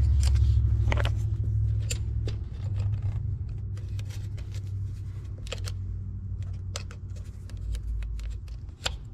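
Low rumble, loudest over the first two seconds and then fading, under a scattering of sharp clicks and taps as hands work the pickup wire and clip on the Ford 302's open distributor.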